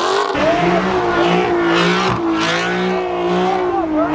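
A car engine held at high revs, its pitch wavering slightly up and down.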